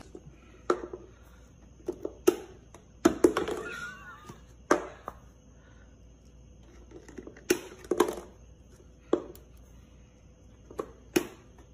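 Paper soda cup with a plastic lid being set down and tapped about on a wooden tabletop: a series of sharp, separate knocks and clicks at uneven intervals, about a dozen in all.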